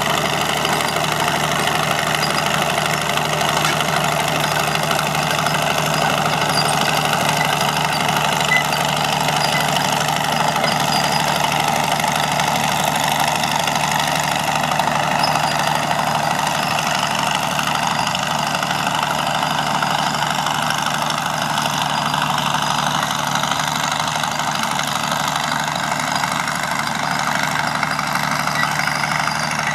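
Fowler Challenger 22 crawler tractor's engine running steadily as it tows a disc harrow across stubble.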